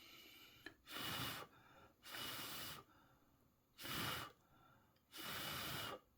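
A person breathing audibly close to the microphone: four breath sounds, in and out, about a second apart. The breather is ill.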